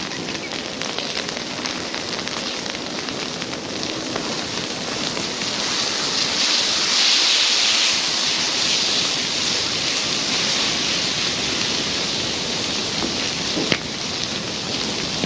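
Wood bonfire burning: a steady rushing hiss that swells a few seconds in, with an occasional sharp crackle or pop.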